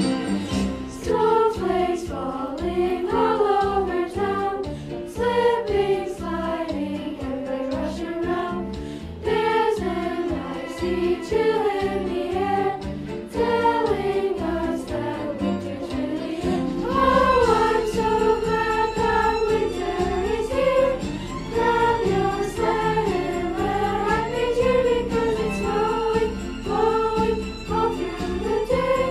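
Middle school chorus singing a winter choral song in unison over instrumental accompaniment, with sleigh bells jingling along.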